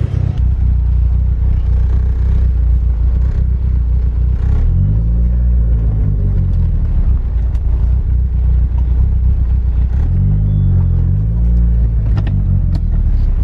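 Eagle Talon's turbocharged 4G63 four-cylinder engine running, heard from inside the cabin, its pitch rising and falling as it revs up a few times, about five seconds in and again near ten and twelve seconds.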